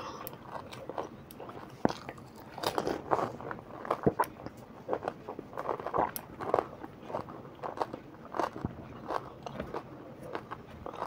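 Close-up crunching and chewing of pani puri: crisp fried puri shells stuffed with green chillies being bitten and chewed, in short irregular crunches.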